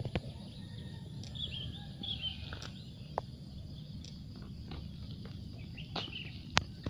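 Kitten hiccupping after eating: short, sudden hics spaced irregularly a second or more apart, the sharpest near the end, over a steady low rumble with a few short high chirps.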